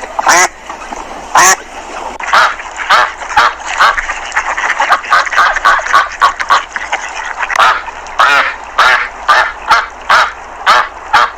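Several ducks quacking over and over, short calls overlapping, thickest in the middle, over a steady background hiss.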